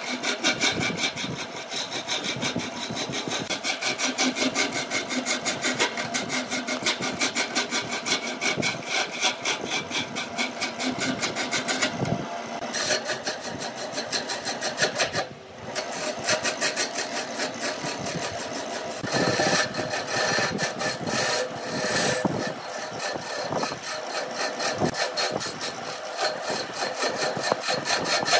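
Hand-held turning chisel cutting a spinning wood blank on a wood lathe: a rapid, rhythmic scraping chatter as shavings peel off. It breaks off briefly about halfway through, then carries on.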